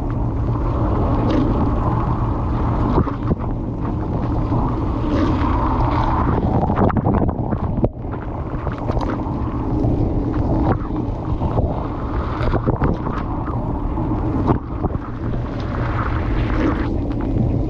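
Dishwasher running, heard from inside the tub: water spraying and sloshing over a steady low pump hum, with scattered small knocks and splashes.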